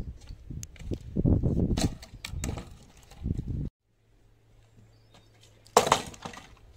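Dry tree branches handled and dropped onto bare dirt: a rough knocking and scraping clatter for the first three and a half seconds. About six seconds in comes a single sharp crack of wood landing on wood, as a branch drops onto a log.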